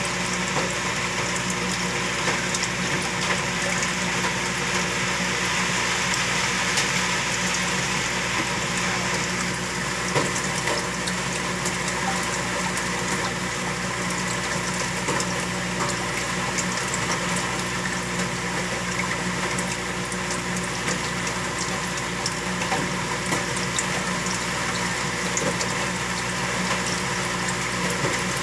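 Saltwater aquarium pump running steadily, with a constant low hum under the sound of circulating, splashing and bubbling water.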